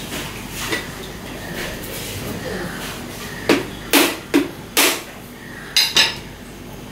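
A heavy knife striking a whole coconut's hard shell to crack it open: six sharp strikes, four in quick succession and then, after a short pause, two close together.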